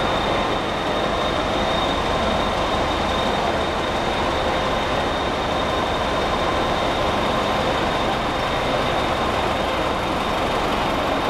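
Narrow-gauge diesel locomotive engine idling: a steady, loud drone with a thin, high, steady whine over it.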